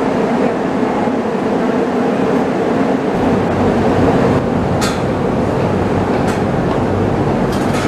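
Steady mechanical hum inside a stationary Penang Hill Railway funicular car with its doors open. A deeper rumble joins about three seconds in, and two sharp clicks come about five and six seconds in.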